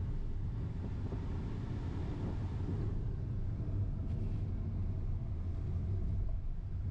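Steady low rumble inside the cabin of a moving Hyundai Alcazar diesel automatic: diesel engine and road noise while driving.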